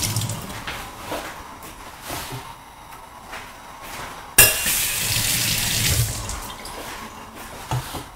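Water from a kitchen tap running into a stainless steel sink, tailing off in the first second. About four seconds in it is turned on again with a sudden rush, runs for about two seconds, then dies away.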